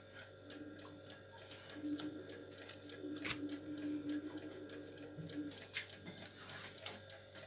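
Faint, irregular small clicks and light handling noise from a large paperback book being held and set straight on a table, over a faint steady hum.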